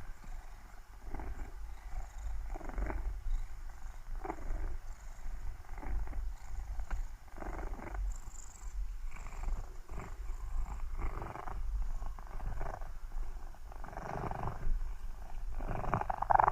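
Cat purring steadily, a low rumble that swells with each breath about once a second, loudest near the end.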